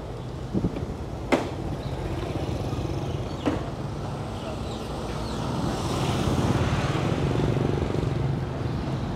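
Road traffic: a steady engine rumble that swells in the second half as a motor vehicle comes close, then eases slightly. A few sharp clicks sound in the first few seconds.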